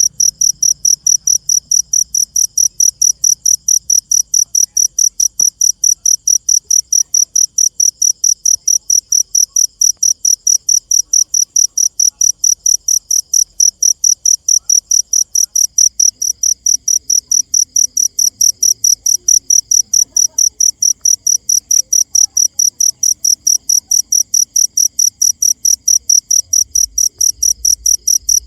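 A cricket chirping steadily: short, high-pitched chirps repeating evenly at about three to four a second.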